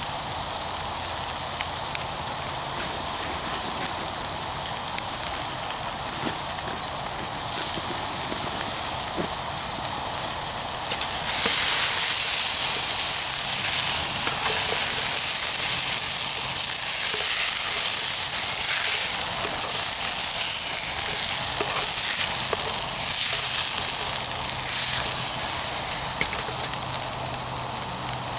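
Burgers sizzling on the grill of a wood-burning portable camp stove, a steady hiss with scattered faint crackles. It grows louder about eleven seconds in.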